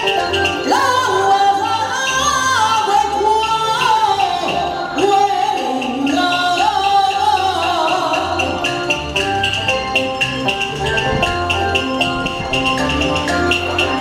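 Taiwanese opera (gezaixi) aria sung into a microphone, the voice gliding and bending in pitch, over a live accompaniment with a quick, steady percussion beat.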